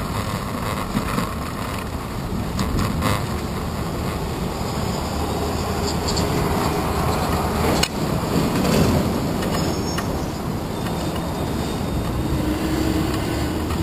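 Steady city traffic noise and road rumble heard through a camera mounted on a bicycle's handlebars while riding in traffic, with one sharp knock about eight seconds in.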